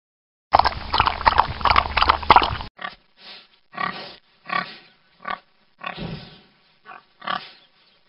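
Boar grunting: a dense, noisy run of grunts for about two seconds, then a string of short separate grunts, about two a second.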